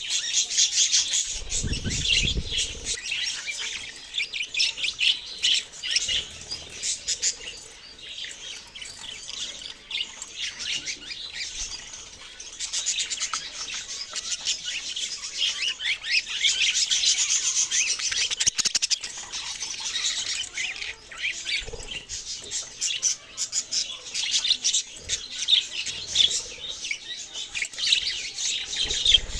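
Budgerigars chirping and chattering without a break, many rapid overlapping high chirps. A short low rumble sounds about two seconds in, and again briefly near the end.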